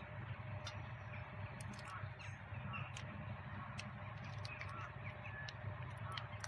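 Faint cawing of crows, a few short calls, over a steady low hum, with scattered small clicks.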